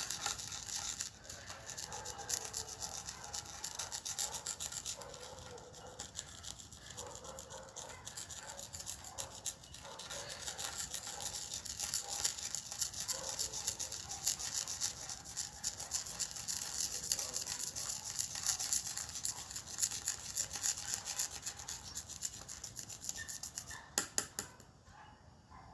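A pen stirring slime mixture of glue and water in a container, rapid continuous scraping and rubbing strokes. The stirring stops about a second before the end.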